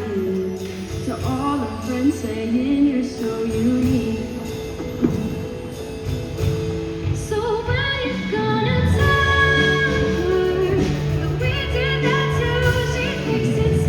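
Show choir singing a song in parts over live band accompaniment with bass and percussion.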